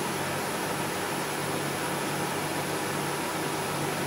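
Steady, even hiss of background noise with a faint low hum, the kind a running fan or air conditioner makes; the gasket placement itself makes no distinct sound.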